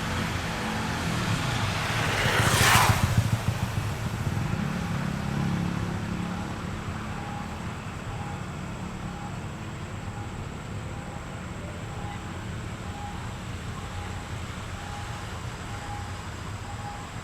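Motor vehicle engines running, with one vehicle passing close about three seconds in. From about seven seconds in, a faint beeping repeats about twice a second.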